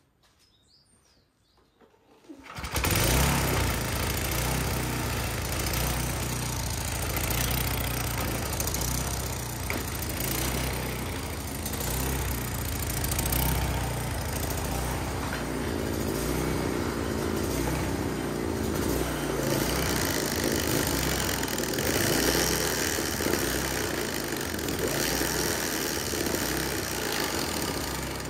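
Wing mower's small four-stroke engine catching about two and a half seconds in and then running steadily, with fresh oil just changed after a seizure the year before.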